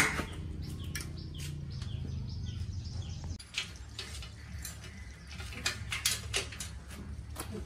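Metal clicks and clinks of bicycle parts being handled: a sharp clank at the start, then a bicycle chain clinking and rattling in the hands several times in the second half.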